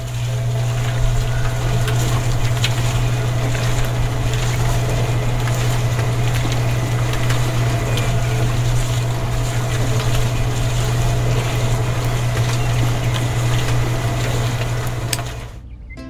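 Small electric motor of a miniature home-built concrete mixer running steadily with a strong low hum, its drum turning and the mix inside rattling with scattered clicks. It cuts off suddenly near the end.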